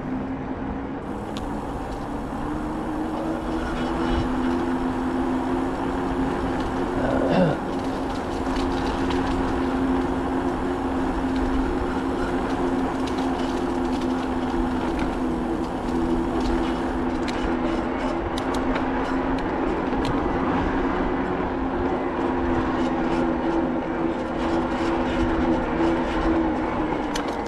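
Bicycle rolling along a tarmac cycle path, with a steady rolling noise and a low two-note hum. There is a brief knock about seven seconds in and light ticking through the second half.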